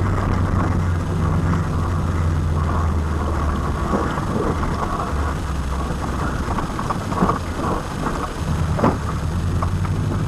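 Rally car heard from inside the cabin on a special stage: the engine runs hard, its note shifting as the driver works the throttle and gears, over constant road and body rattle. Two sharper knocks from the car striking the road surface come a second and a half apart late on.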